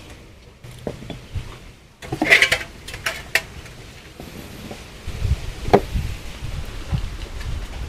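A live snakehead fish being handled for cleaning, knocking on a wooden chopping board and clattering in an aluminium basin, loudest about two seconds in, with scattered knocks and low thumps after.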